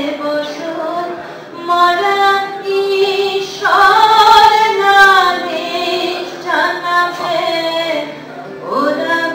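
A woman singing solo in a slow, expressive style, holding long notes and sliding up into each new phrase, with a steady low note sounding beneath her voice.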